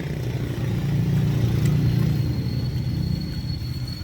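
Street traffic: a motor vehicle going past, its low rumble swelling about a second in and easing off toward the end.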